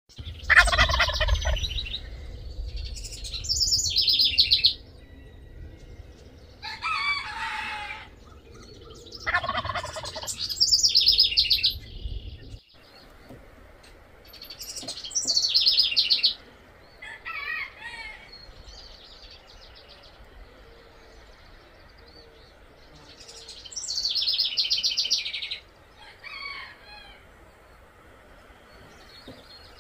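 Wild turkey gobbling a few times in the first half, among a songbird's high trill that repeats every several seconds throughout. Low wind rumble on the microphone stops suddenly about halfway through.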